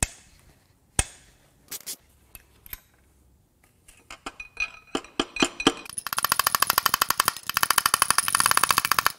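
Hand ratchet wrench clicking as it loosens a bolt on the engine's rotating assembly: a few separate clicks at first, then fast, even clicking from about four seconds in that is loudest near the end.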